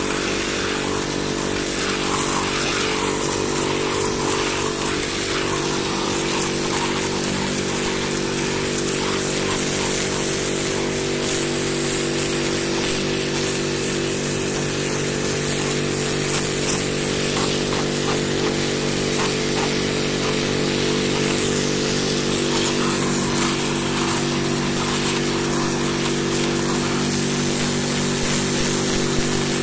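Pressure washer running steadily, its motor hum under the hiss of the high-pressure water jet spraying onto clay roof tiles.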